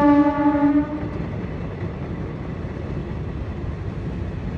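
A horn sounds once for about a second, a single low pitch. Under it, and after it, the steady low rumble of a passenger train's coaches rolling past.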